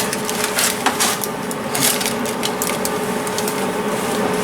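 Hand-lever throatless shear cutting sheet steel: a run of irregular sharp crunches and snips as the blade bites through the metal, over a steady low hum.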